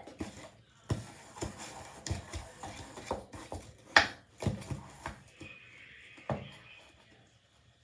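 Watery glue slime being mixed in a bowl just after contact solution has been added as activator: a run of irregular wet clicks and taps, the sharpest about four seconds in, thinning out after about six seconds.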